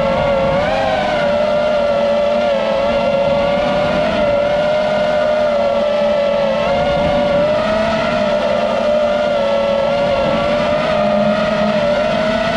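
FPV quadcopter's electric motors and propellers whining steadily in flight: one high tone with its overtones, wavering slightly in pitch as the throttle shifts.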